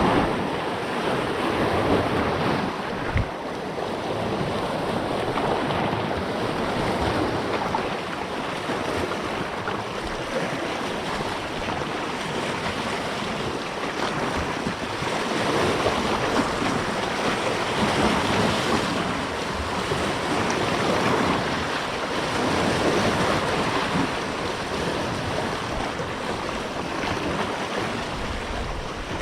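Sea waves washing and surging, swelling and easing every few seconds, with wind on the microphone. A single sharp knock about three seconds in.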